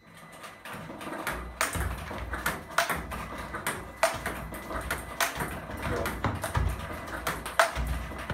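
Tennis balls being hit and bouncing during a forehand drill: a sharp strike roughly every second or so, with lighter taps in between.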